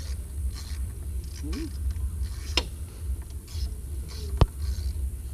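Hand-tool work on a car being taken apart: faint scraping and a few sharp metallic clicks, the loudest about four and a half seconds in, over a low steady rumble.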